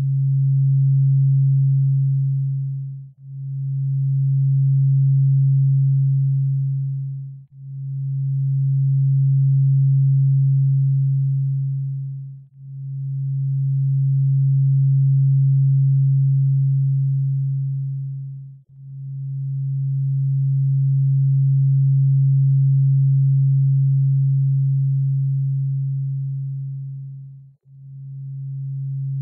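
A low, pure electronic sine tone, sold as a theta brainwave sound. It fades almost to nothing and swells back in slow waves every four to nine seconds, each swell lasting longer than the one before.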